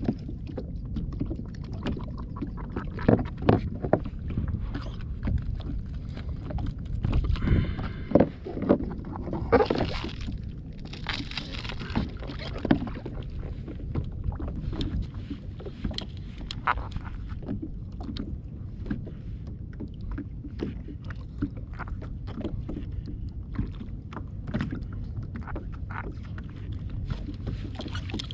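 Water lapping against a plastic kayak hull under a steady low rumble of wind on the microphone, with many scattered knocks and taps on the hull. A couple of short splashy bursts come about a third of the way in.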